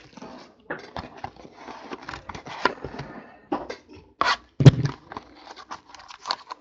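Irregular rustling and clicking of trading card packaging and boxes being handled, with one dull knock a little past halfway.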